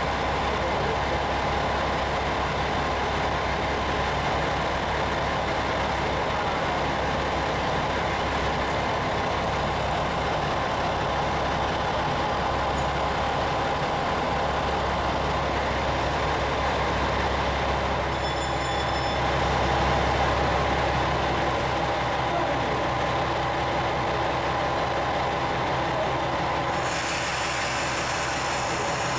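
An engine idling steadily at a constant level. A short high beep sounds about two-thirds of the way through, and a hiss starts near the end.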